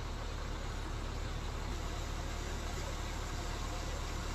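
An engine running steadily with a low, even hum under a constant rush of noise.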